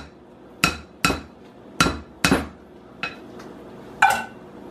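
White spoon knocking against the side of a glass mixing bowl: four sharp clinks with a short ringing tone in the first two and a half seconds, then two fainter knocks about three and four seconds in.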